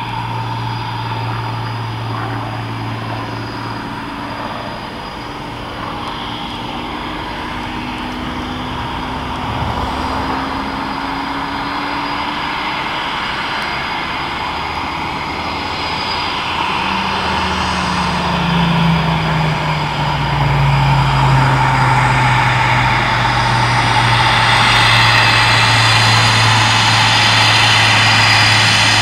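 Vintage piston-engined propeller aircraft flying past. Its engine note falls in pitch about two-thirds of the way through and grows louder towards the end.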